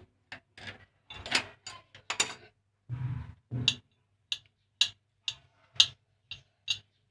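Water pump pliers and a braided hose's threaded nut being worked loose from a wall angle valve: a string of sharp metallic clicks and ticks at uneven intervals, with a couple of duller knocks about three seconds in.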